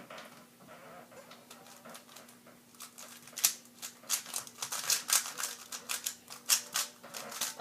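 A plastic 3x3 speedcube being turned by hand: clicking and clacking of the layers, sparse at first, then fast runs of turns from about three seconds in.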